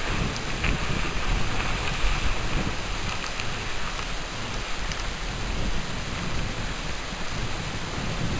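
Steady rushing wind noise buffeting the camera's microphone, with a low rumble, as the skier carrying it descends the slope.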